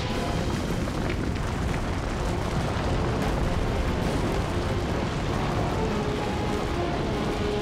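Continuous heavy rumbling and scraping of a metal vehicle being dragged over rocky ground on a cable, with crashing rock and debris.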